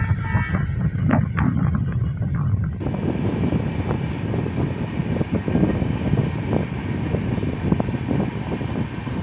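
A locomotive-hauled passenger train of red coaches passing close by: a loud, steady rumble of wheels on the rails, with irregular knocks and clatter from the wheels and bogies.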